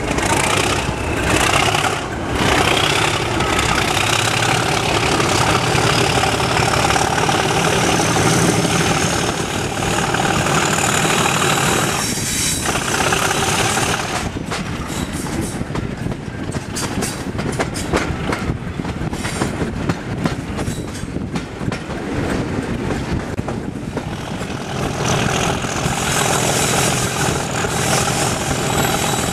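Preserved British Rail mainline diesel locomotive working hard under power as it hauls the train away, heard from an open carriage window. A high whine rises steadily in pitch over the first ten seconds; from about halfway the engine sound eases and fluttering rushing air and wheel noise come through, with the engine working strongly again near the end.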